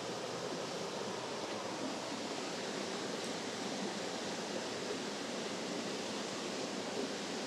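Waterfall on a mountain stream: a steady, even rush of falling water.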